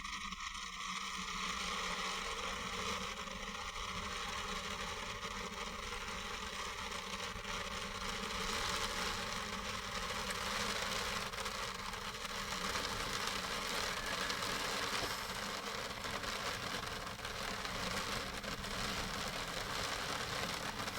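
Steady rain falling on the roof of a parked campervan, an even, unbroken hiss.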